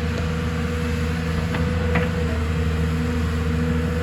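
Excavator's diesel engine running steadily, with a steady higher whine over the low drone and a couple of faint knocks about one and a half to two seconds in.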